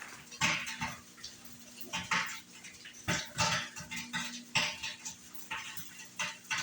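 Dishes and cooking utensils clattering: a string of separate sharp clinks and knocks, several close together about two and three seconds in, over a faint steady hum.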